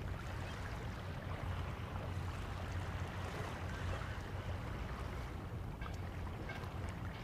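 Steady waterfront ambience: a low hum under an even wash of water and wind noise, with a few faint clicks about six seconds in.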